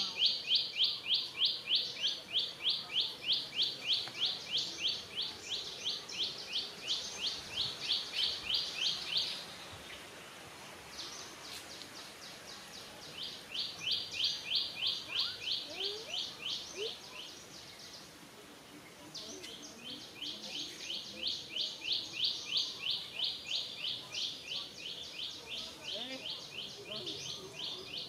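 Rapid, high-pitched chirping repeated about four times a second in long, even runs, breaking off twice for a few seconds.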